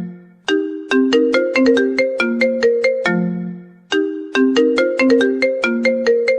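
Mobile phone ringtone: a short melody of quick, sharply struck notes that fade, repeating its phrase about every three and a half seconds.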